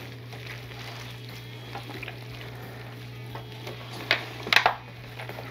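Gloved hands pulling apart a smoked pork butt in a disposable aluminium pan: soft wet squishing and tearing of the meat over a steady low hum, with two sharp crackles about four seconds in.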